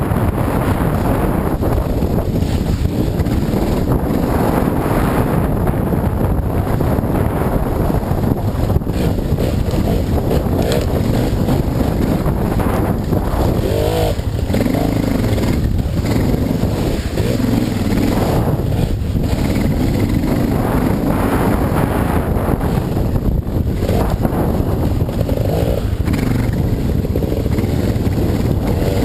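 Dirt bike engine running under throttle on the move, its pitch rising and falling several times through the middle, heard through a helmet-mounted camera microphone over a steady heavy rumble.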